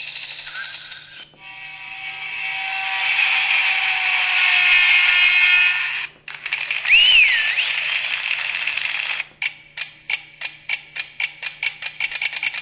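A run of the LG-LP3000 mobile phone's built-in electronic sound effects, one after another. First a short tone, then a bright shimmering sound, then one with a pitch that swoops up and back down, and from about nine seconds in a string of clicks that come faster and faster.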